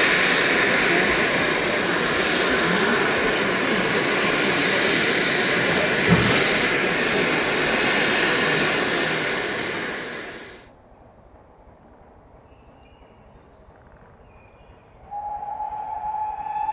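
Steady hiss of steam from two standing GWR Castle-class steam locomotives, with one knock partway through. It cuts off abruptly to quiet open-air ambience. Near the end a steam locomotive's whistle starts, a long held note rising slightly in pitch, from 7029 Clun Castle approaching the crossing.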